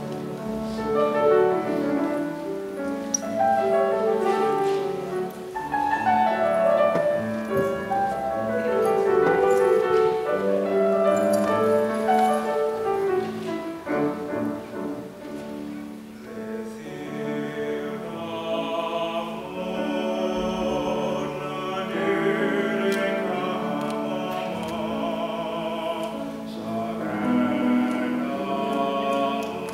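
Grand piano playing an introduction, then a male baritone voice enters a little over halfway through, singing in classical operatic style with vibrato over the piano.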